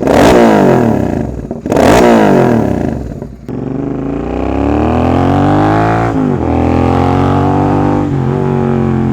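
Royal Enfield GT 650's 648 cc parallel-twin through an aftermarket exhaust: two sharp throttle blips, each falling away. Then the bike pulls away and accelerates, its pitch climbing and breaking at two upshifts, at about six and eight seconds in.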